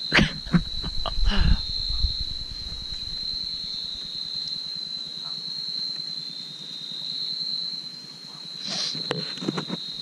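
A night insect's steady, high-pitched trill holds without a break throughout. Over it come rustling and knocks from branches and vines being handled, heaviest in the first two seconds and again about nine seconds in.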